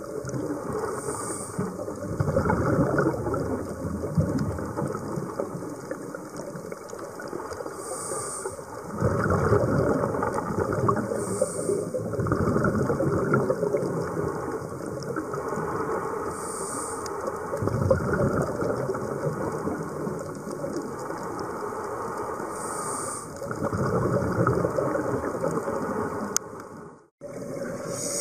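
Scuba diver's breathing as picked up by an underwater camera: a brief regulator hiss on each inhale every few seconds, and longer swells of bubbling noise from the exhaled bubbles. The sound drops out for a moment near the end.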